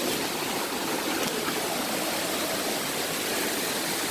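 Waterfall rushing steadily, an even wash of falling water and spray.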